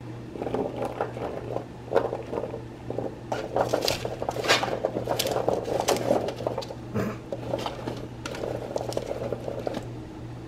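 A hand pushing drained chickpeas and chopped vegetables around a parchment-lined sheet pan: irregular rustling and crinkling of the parchment paper with light clicks of chickpeas rolling, over a steady low hum.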